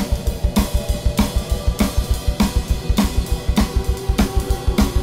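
Music driven by a drum kit: a fast, steady beat of bass drum, snare and cymbals, with a strong accent about every 0.6 seconds.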